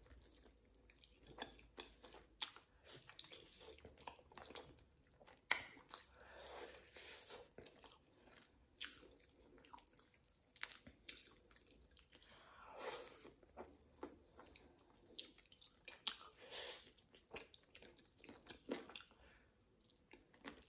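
A person chewing and biting into a grilled chicken wing, with scattered short, sharp wet mouth clicks and smacks.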